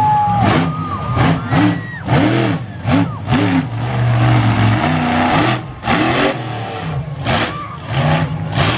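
Monster truck engine revving hard in a string of quick throttle bursts, its pitch swinging up and down again and again, with a steadier stretch about midway.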